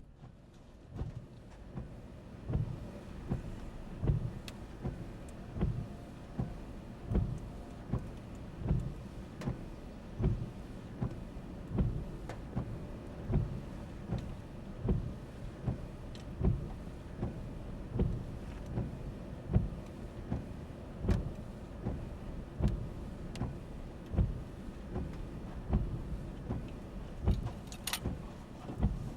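A vehicle in motion heard from inside: a steady low rumble with irregular low thumps about once or twice a second.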